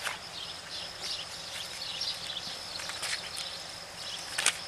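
Insects droning steadily at a high pitch, with scattered short chirps over it. A short sharp knock about four and a half seconds in.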